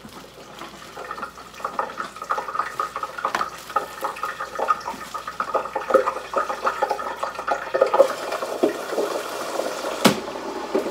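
French fries frying in a small countertop deep fryer: hot oil bubbling and crackling steadily. A sharp knock near the end.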